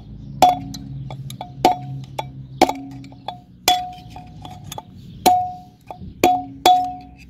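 Hammer blows on a screwdriver used as a drift against a wheel-bearing race in a steel rear brake-drum hub: about seven hard, irregular metal knocks roughly a second apart with lighter taps between, each ringing briefly. It is the worn rear wheel bearing being knocked out of its seat.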